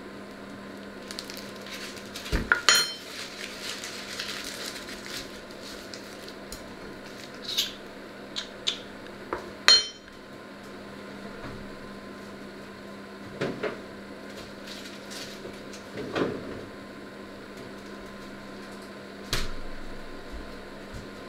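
Kitchen pots, utensils and a paper bag being handled, with several sharp clinks and knocks now and then over a steady low hum. The loudest knocks come about two and a half seconds in and again just before the tenth second.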